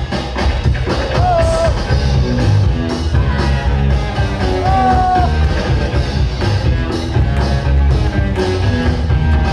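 Loud music with a heavy, steady bass beat and a melody line that holds a few long notes, like a voice or lead instrument.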